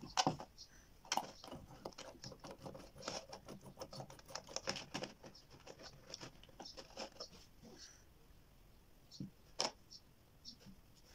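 Handling noise of a plastic LED bulb housing and its LED board being turned in the hands: quick runs of small plastic clicks, taps and scrapes, thick for the first several seconds and then a few scattered taps.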